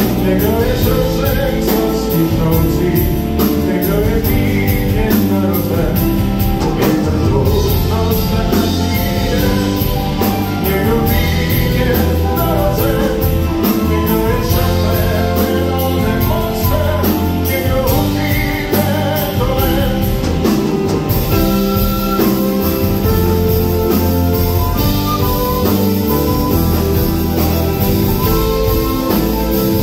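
Live band playing an instrumental passage: a flute carries a winding melody over electric guitar, keyboards, bass and a steady drum-kit beat.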